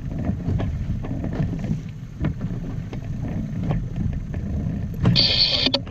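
Wind on the microphone and water against the hull of a small inflatable boat under way on open sea, a steady low rush with scattered knocks. Near the end comes a brief high-pitched whir lasting under a second.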